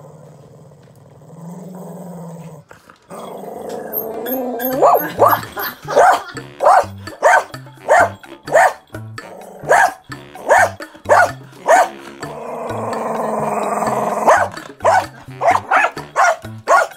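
American Cocker Spaniel barking at its owner, about two barks a second, with one longer drawn-out growl in the middle before the barking picks up again. It is demand barking for more food after a finished meal. Background music with a bass line runs underneath.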